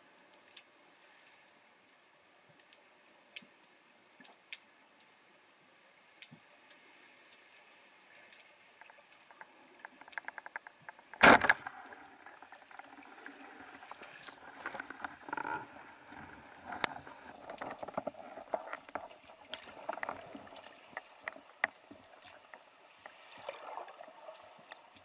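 Water sounds from a spearfishing dive: faint scattered clicks at first, then one loud sharp knock about eleven seconds in, followed by busier sloshing and gurgling with many clicks.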